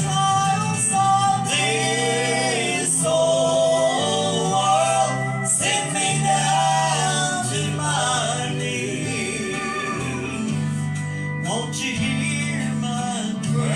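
Gospel song: singing over steady instrumental accompaniment with a held bass line.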